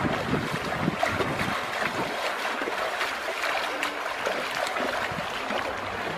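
Feet splashing and wading quickly through a shallow flowing river, over the steady rush of running water. The splashes come thick and irregular, heaviest in the first two seconds.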